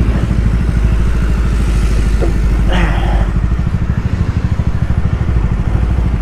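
KTM Duke 390's single-cylinder engine running steadily under way, heard through the rider's helmet microphone.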